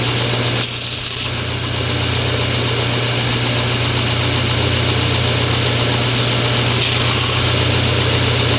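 Belt grinder running steadily with a low hum while a small wooden block is shaped on it, with two short bursts of sanding hiss, about a second in and near the end, as the wood is pressed to the belt.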